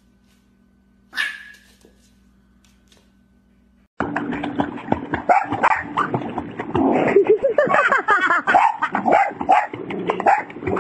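A dog barking and yelping excitedly and repeatedly, loud and continuous from about four seconds in, after a mostly quiet start broken by one short high-pitched sound about a second in.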